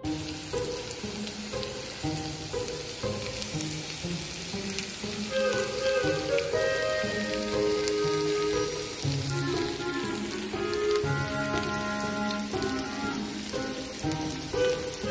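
Chicken and diced Yukon potatoes frying in a skillet, a steady sizzling hiss, under background music with held notes.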